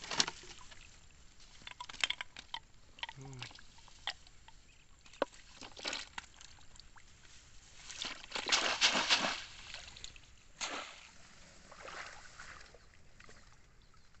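Swamp water sloshing and splashing as a wire fish trap is lifted and emptied into a mesh basket of fish, with scattered sharp clicks; the heaviest splashing comes about eight to nine seconds in.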